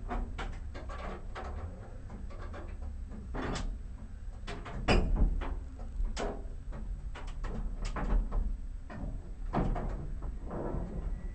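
Bonnet catches on a Shelby GT350 race car being undone and the bonnet lifted: a series of metallic clicks and knocks, loudest about five seconds in.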